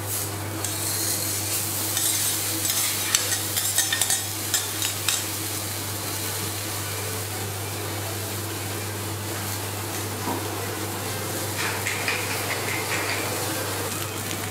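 A thick block of Kagoshima A5 wagyu sizzling as it sears on a hot steel teppanyaki griddle. A run of sharp clicks and taps comes about two to five seconds in, over a steady low hum.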